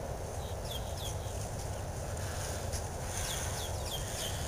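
A low steady rumble on the microphone, with small birds chirping in two runs of short high calls: one about half a second in, the other from about three seconds in.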